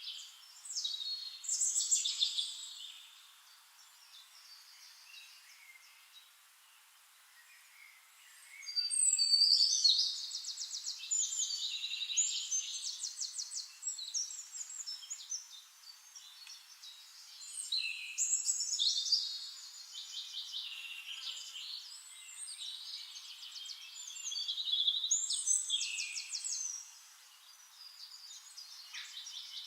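A songbird singing high-pitched phrases of rapid trills and chirps, a new phrase every seven or eight seconds, with a quieter gap after the first one.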